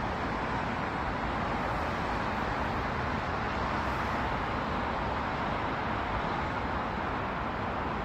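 Steady, even hum of distant road traffic.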